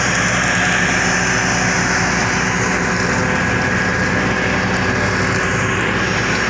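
Diesel engine of a road roller running steadily as it compacts freshly laid asphalt in road black-topping.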